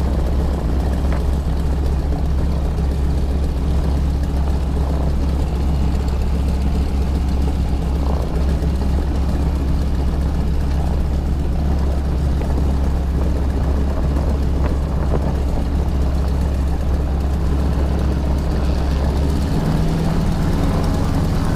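T-6 Texan's Pratt & Whitney R-1340 nine-cylinder radial engine running with a steady low drone, changing slightly in pitch near the end.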